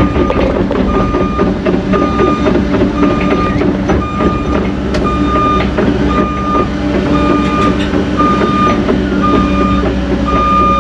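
Cat 307.5 mini excavator travelling, its travel alarm beeping steadily about once a second over the diesel engine running.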